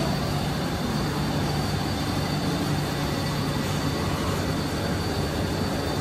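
Dairy milking parlour machinery running: a steady, even mechanical hum and rumble from the milking system, with a faint high whine over it.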